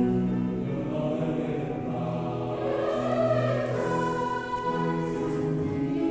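Choir singing a slow piece in several parts, with long held notes that shift to a new chord every second or so.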